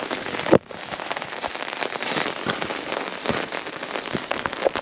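Rain falling steadily, with many separate drops ticking close by. There is one sharp, loud knock about half a second in.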